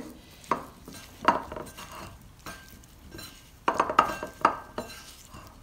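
Cubes of paneer being mixed by hand with spice powders and ginger-garlic paste in a bowl: irregular soft knocks and rubbing as the cubes are turned, busiest about four seconds in.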